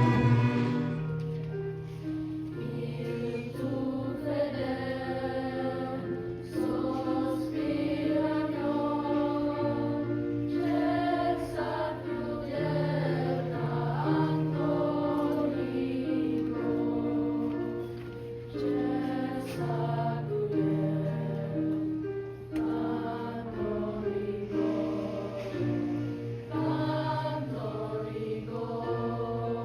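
A choir singing slow, sustained chords that change every second or two over a steady low held note.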